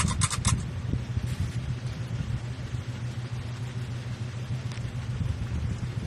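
Hunter Studio Series ceiling fan running at speed: a steady low motor hum with the rumble of air moving. A few quick high clicks come right at the start.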